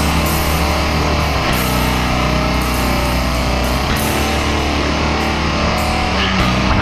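Rock music with guitar, in a heavy metal style.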